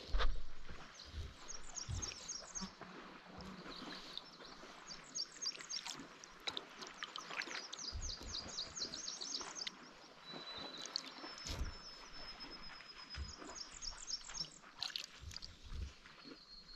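Kayak paddle strokes dipping and dripping in calm water, with occasional knocks of the paddle. Songbirds sing from the shore: several runs of quick high chirps, a long thin whistled note about two-thirds in, and a shorter lower one near the end.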